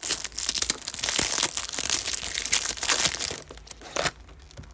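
Crinkling and crackling of plastic trading-card packaging being handled, dense for about three and a half seconds and then thinning to a few scattered crackles.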